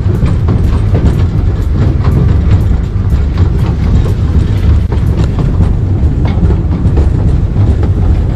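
Taipingshan Bong-Bong narrow-gauge forest train rolling along the track, heard from one of its open carriages: a loud steady rumble with irregular clacks of the wheels over the rails.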